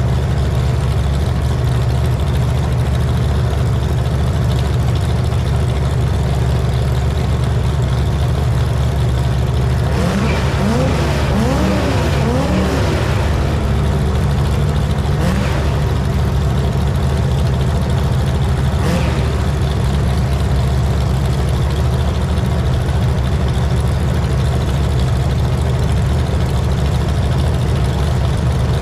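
A loud engine running steadily, revved up and down several times in quick succession around the middle, with a shorter blip a few seconds later.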